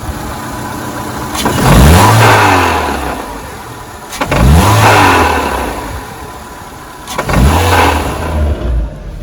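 Renault Megane 2 engine revved in three short blips, each climbing and falling back to idle, with a sharp knock at the start of each blip. The metallic knock is taken by the mechanic for a breaking flywheel (drive plate) on the DP0 automatic gearbox, heard as the revs drop from about 2000–3000 rpm.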